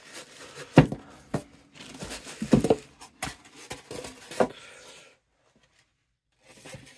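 Unpacking noise: plastic wrap crinkling while polystyrene foam end blocks are pulled off a boxed turntable, with several sharp knocks as pieces are handled and set down on the table. It stops about five seconds in.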